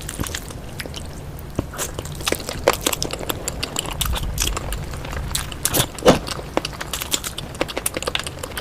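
Close-miked eating of spicy egg curry: chewing and mouth sounds, a string of short irregular clicks and smacks over a steady low hum.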